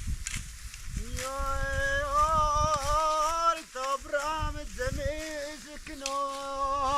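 A voice singing long, wavering held notes in a slow melismatic line, starting about a second in and breaking briefly three times, over a low rumbling noise.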